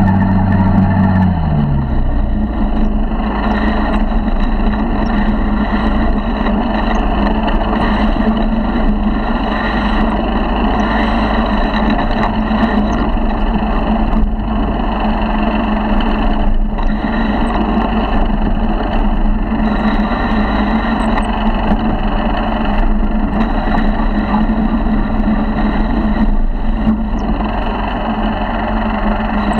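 A 50cc four-stroke motorized bicycle engine runs steadily while the bike is ridden over rough grass ground. There are a few short knocks from bumps along the way.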